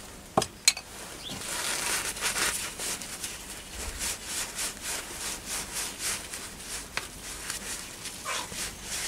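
Cloth rag rubbing on steel parts, wiping out a shaft's bore and a threaded stud with solvent before brazing. It comes in quick repeated strokes, about three a second, after two light clicks near the start.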